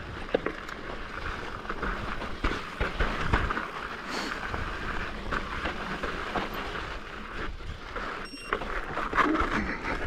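Mountain bike clattering and rattling as it rides down rough rock, with frequent sharp knocks from the wheels and frame hitting the rocks.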